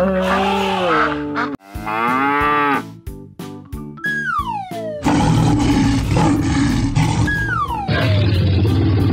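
Cartoon animal calls, two low moo-like calls one after the other, then sound effects: falling whistle glides and a loud, steady rumbling noise that sets in about five seconds in.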